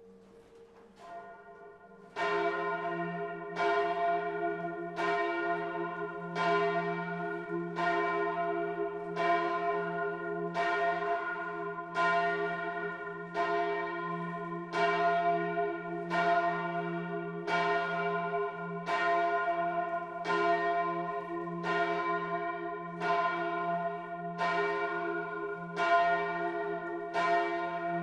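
Large Grassmayr-cast church bells swinging and ringing in the tower, heard close up. A fainter ringing tone hangs on for the first two seconds, then loud, regular strokes begin, each clang ringing on into the next.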